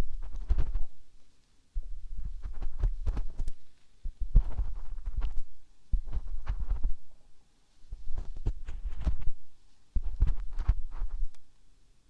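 Ear-cleaning sounds right at the microphone's ear: crackly scratching and rubbing in bursts of about a second, each carrying a deep rumble, repeating about six times.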